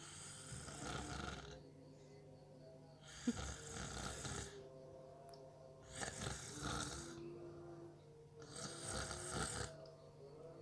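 A sleeping person snoring: four long snores, one about every three seconds. A single sharp click lands early in the second snore.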